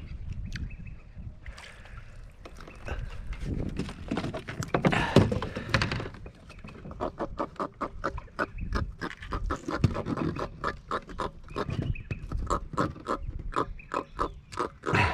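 A small trevally being unhooked on the floor of a plastic kayak gives a fast series of short grunting croaks, several a second, mixed with knocks of the fish against the hull.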